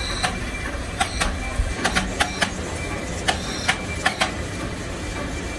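Machine-shop clatter: a steady low machinery drone with many sharp metallic clinks at uneven intervals, and a faint high steady tone that comes and goes.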